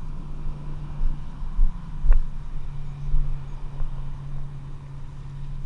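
Wind buffeting the microphone in irregular low thumps over a steady low hum, with one sharp click about two seconds in.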